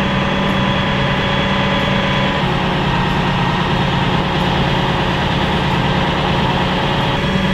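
Engine idling steadily, with a constant low hum and a steady higher whine over it.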